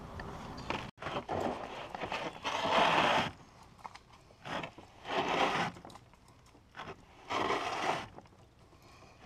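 Canoe hull scraping over the sandy, pebbly shore as it is pushed off, the loudest sound, then paddle strokes in the water about two seconds apart.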